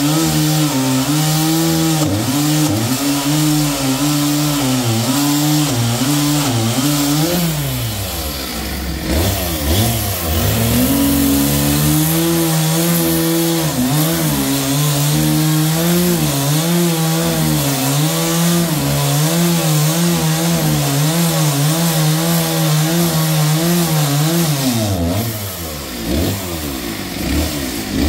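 Sawmill saw running hard as it cuts walnut logs, with a steady hum that wobbles in pitch. The pitch sags and climbs back twice, once about a third of the way in and again near the end.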